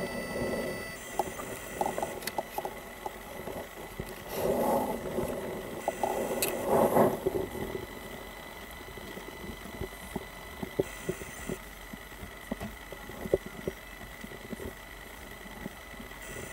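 Handling noise on a body camera inside a patrol car: muffled rustling twice in the first seven seconds, then scattered light clicks and taps as a notepad is handled right against the microphone, over a steady high whine and a low cabin hum.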